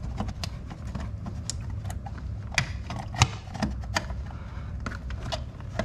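A plastic strut tower cap being worked by hand under plastic trim and into place over a car's front strut tower: scattered clicks, taps and scrapes of plastic parts, the sharpest a little past three seconds in.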